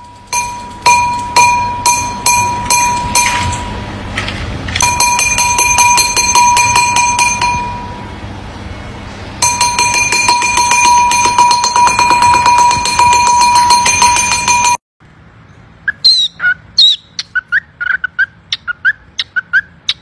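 Green-cheeked conure tapping a porcelain bowl with its beak, each tap making the bowl ring with a clear bell-like tone: single taps about twice a second at first, then long runs of fast tapping. The ringing cuts off suddenly near the end and short high chirps follow.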